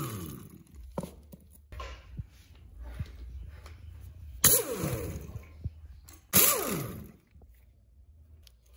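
Pneumatic impact wrench run in short bursts on engine bolts: twice, about four and a half and six and a half seconds in, after the tail of one at the very start. Each burst is a hissing run whose motor pitch rises and falls. Light metallic clicks come between the bursts.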